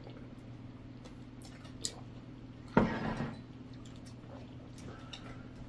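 Close-miked eating sounds from a plate of saucy BBQ ribs: a few faint clicks, then a louder wet mouth sound about three seconds in, over a steady low hum.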